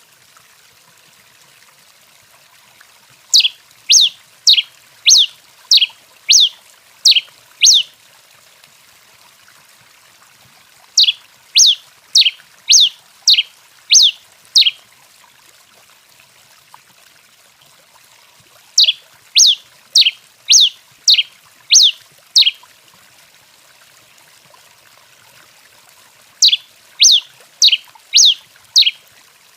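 Tico-tico-rei (Coryphospingus finch) singing: four runs of seven or eight quick down-slurred notes, about two a second, each run lasting about four seconds with a pause of several seconds between runs.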